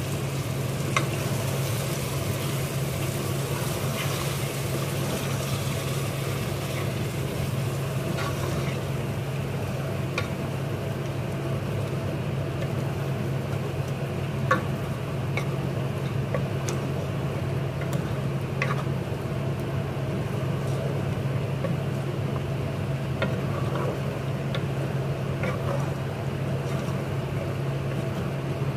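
Wooden spatula stirring meat and thick sauce in an aluminium pot, with scattered light knocks and scrapes against the pot. A steady low hum runs underneath throughout.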